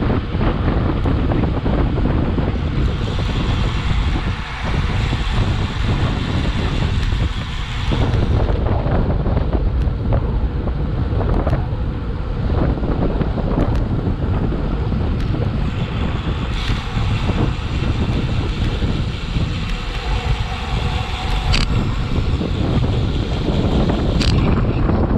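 Wind buffeting the microphone of a bike-mounted action camera at riding speed, a steady loud rush heaviest in the low end. Two sharp clicks sound near the end.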